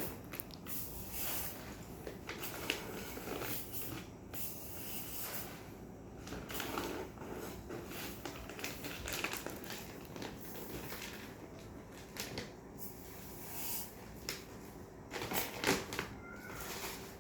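Irregular rustling with scattered light clicks and knocks, the loudest cluster near the end.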